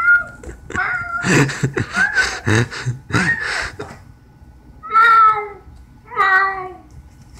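A series of about six cat-like meows, some rising then falling in pitch. Bursts of rustling noise fall between the calls in the first half.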